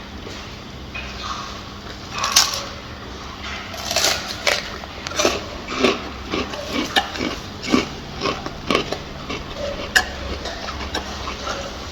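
Gorilla chewing and crunching food, with irregular sharp crunches and smacking, most frequent through the middle of the stretch.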